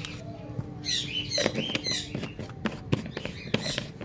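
Small cage birds chirping in short high calls, several times over, with a few sharp clicks and taps from a plastic supplement jar being handled and shaken.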